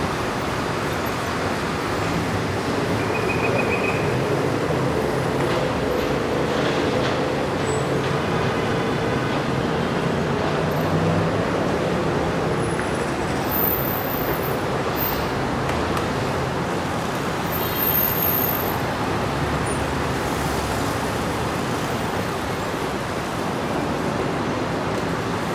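Steady heavy city street traffic: the continuous engine and tyre noise of cars, buses and trucks moving past, with a few brief high-pitched squeals in the middle.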